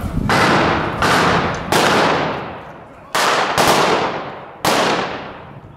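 Six single gunshots, sharp loud bangs at uneven intervals, each ringing on in a long fading echo.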